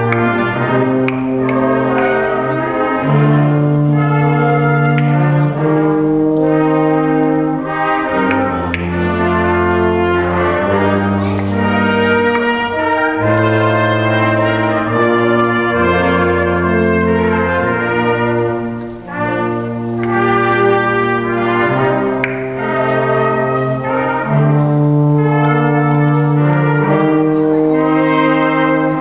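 Brass ensemble playing the finale of a piece: held chords over a low bass line that steps to a new note every second or two, with a brief drop in loudness about two-thirds of the way through.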